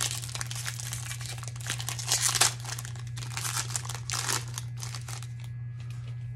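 Crinkling and tearing of a baseball card pack's foil wrapper as it is ripped open by hand: a busy run of crackles, loudest about two seconds in, dying down after about five seconds.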